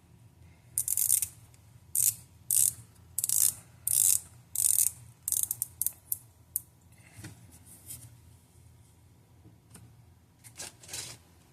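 Metal watch bracelet rattling in a series of short bursts as it is handled and fitted back onto the watch, with a quiet stretch before a last pair of rattles near the end.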